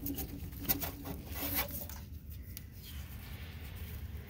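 Hands rubbing and scraping as a fuel line is worked into a plastic retaining clip on the transmission brace, with a few short clicks in the first two seconds, then quieter handling.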